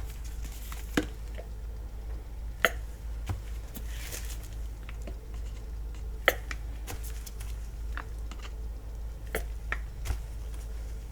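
Scattered sharp clicks and taps from plastic paint bottles and a plastic cup being handled as acrylic paint is added to the cup, over a steady low hum.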